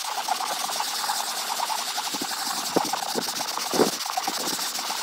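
Stiff plastic-bristle scrub brush scrubbed rapidly back and forth over a marine vinyl seat cushion, making a steady scratchy rasp of quick strokes. It is working bleach into mildew stains and cuts off suddenly at the end.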